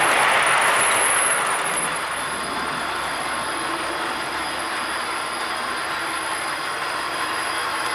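OO gauge model train running over the track: a steady rush of wheel and mechanism noise, louder as a rake of model coaches passes close by, then dropping about a second and a half in.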